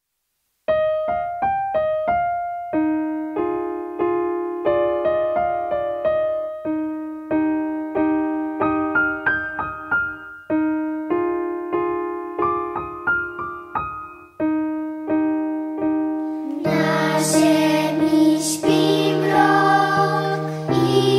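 Piano playing a song introduction of single struck notes and chords, then a children's choir comes in singing with the piano about three-quarters of the way through.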